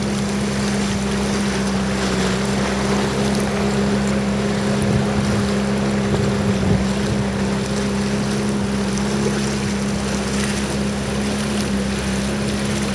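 Small motorboat engine running at a steady pitch, with water and wind noise around it.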